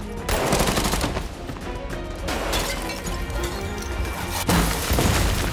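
Action-film sound effects of bursts of gunfire, three loud volleys about two seconds apart, over tense background music.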